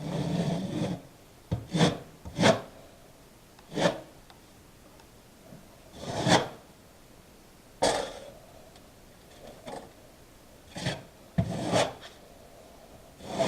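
Notched trowel scraping and combing acrylic tile adhesive across the surface in about ten short, irregularly spaced strokes, the first one longer.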